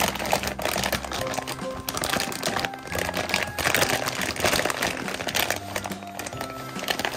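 Clear plastic packaging bag crinkling and rustling as hands press and shift it, over background music.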